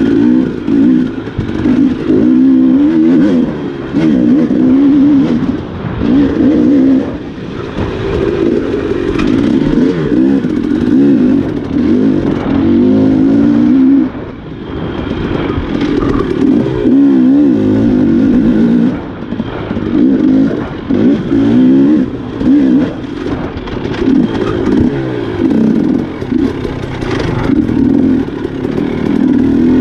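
Enduro dirt bike engine revving up and down without pause as it is ridden over an off-road trail, the pitch rising and falling every second or two, with a short easing-off about halfway through.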